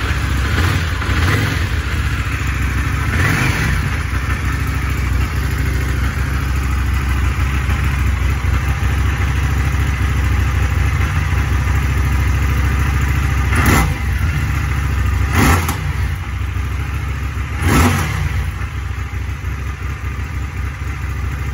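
Indian FTR's 1200 cc V-twin idling through an Akrapovic slip-on exhaust, with quick blips of the throttle: a few in the first four seconds, then three more spaced about two seconds apart near the end.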